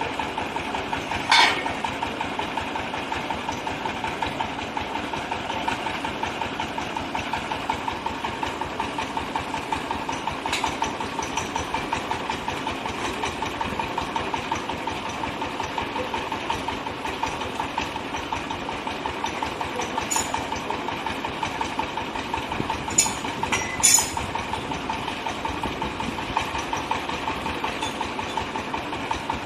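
Compressed-air well drilling rig running steadily, with a fast, even pulsing throughout and a few sharp metallic clanks, the loudest about a second and a half in and two close together near the end.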